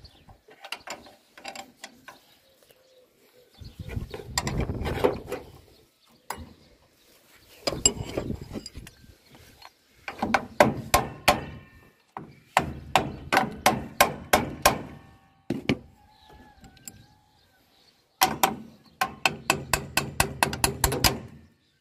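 Hand tools working on the metal of a John Deere 346 baler's knotter chain drive: runs of sharp metallic clicks, about four or five a second, some with a short ring. Between the runs come duller clunks and scraping.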